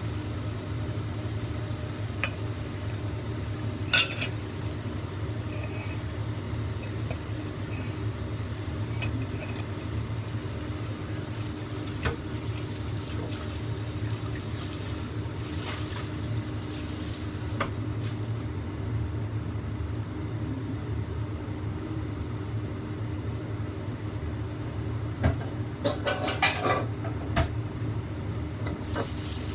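Steady hiss and low hum of a covered stainless wok steaming over a gas burner, broken by a few short metallic clinks, one about four seconds in and a small cluster near the end.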